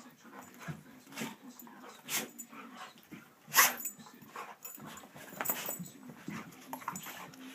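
A dog at play making a string of short, irregular sounds, the loudest a sharp one about three and a half seconds in.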